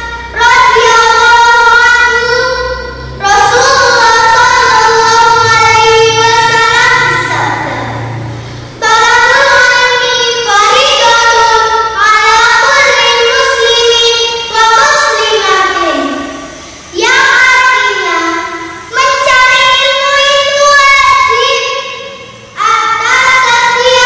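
A young girl singing solo in long melodic phrases, holding notes and sliding between them, with short breath pauses between lines.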